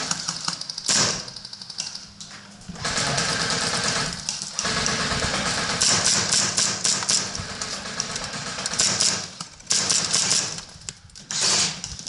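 Airsoft guns firing in rapid bursts of sharp clicking shots, several bursts a few seconds apart.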